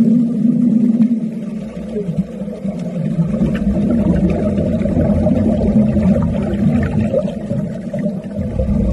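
Underwater welding heard through the water: a steady, low, muffled rumble.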